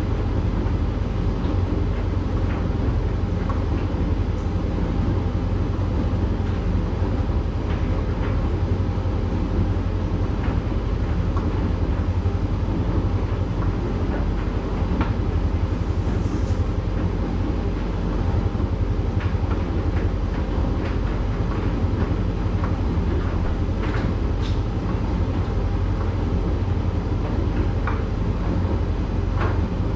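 Candy GrandO tumble dryer running a drying cycle with a small load of towels: a steady drum-and-fan hum, with occasional faint clicks.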